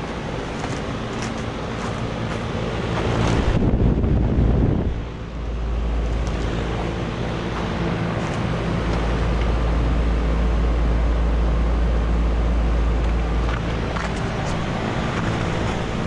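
Lennox Merit 14HPX heat pump outdoor unit running in heat mode: the condenser fan rushing air over a steady compressor hum. A louder rush of air comes about four seconds in, followed by a deep rumble of wind on the microphone.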